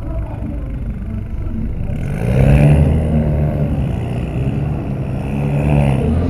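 Cadillac show car engine idling with a low rumble, then revved several times in slow rises and falls from about two seconds in, heard from inside a car's cabin.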